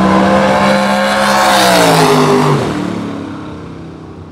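A drag-racing car's engine running at full throttle down the strip. About two and a half seconds in its pitch drops and the sound fades away as the car reaches the end of the run, where its parachute comes out.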